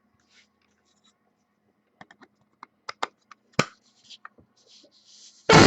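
Trading cards and their plastic packaging being handled: scattered light clicks and scratches, then a sudden loud rush of noise near the end.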